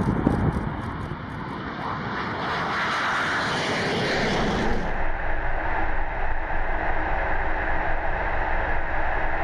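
QF-16 (converted F-16) jet engine roaring through the takeoff roll and climb-out past the listener. About five seconds in, the sound cuts to a steadier jet noise with a few steady tones, heard from inside the cockpit.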